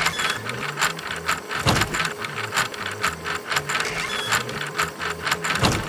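Plastic LEGO Technic gears clicking and rattling as their crank is turned by hand, a steady run of about four or five clicks a second, over soft background music.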